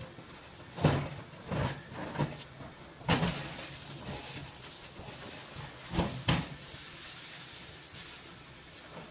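Heavy wooden knocks and thumps as large turned hardwood pieces are shifted and set down on a wooden cart bed, about six in all, two close together near the end. A steady rushing background noise comes up about three seconds in.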